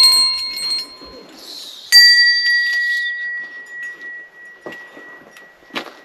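Hanging brass shrine bells. One is still ringing from a strike just before and fades out about a second in. Another is struck about two seconds in and rings out with a clear, slowly fading tone for about three seconds, followed by a few light knocks near the end.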